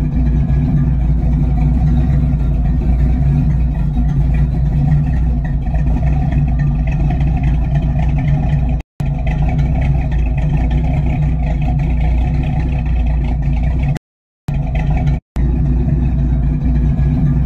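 Engine of a lifted square-body Chevrolet pickup running steadily, loud and mostly low-pitched. The sound drops out sharply about nine seconds in and twice near the end.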